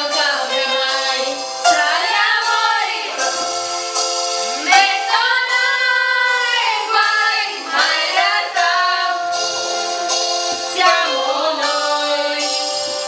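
Young women singing together into handheld microphones over an instrumental backing of sustained chords.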